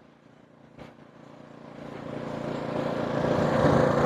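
AIMS 3200-watt inverter generator's four-stroke OHV engine speeding up as eco mode is switched off, growing steadily louder over about two seconds and then holding at the higher speed. A single click sounds just under a second in.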